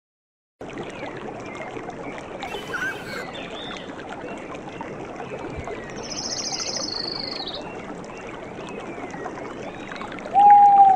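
Outdoor nature ambience: a steady rush of flowing river water with scattered bird chirps and calls, and a high buzzy trill about six seconds in. Near the end a loud held tone cuts in suddenly and is the loudest sound.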